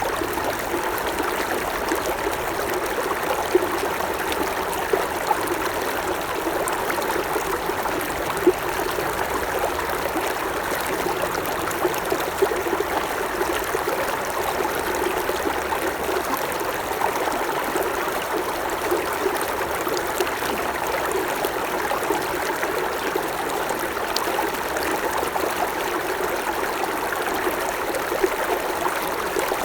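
Creek water running and trickling over stones in a steady babble, with small splashes now and then.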